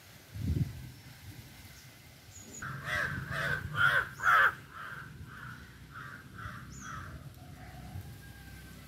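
A bird calling in a quick run of about ten repeated calls, loudest near the middle and then fading out. A dull thump about half a second in.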